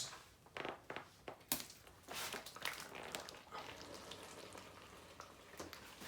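Giant slime pouring from a bucket into a pool of slime, giving faint, irregular crackling and popping clicks as it falls and folds in.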